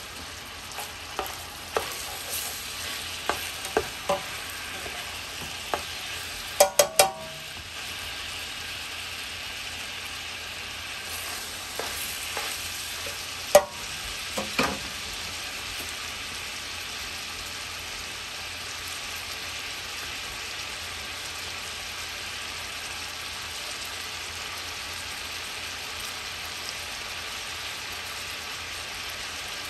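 Smoked sausage and pork browning in hot oil in a pot, a steady sizzle throughout. A stirring utensil knocks and scrapes against the pot several times in the first half, loudest about halfway through, then the sizzle carries on alone.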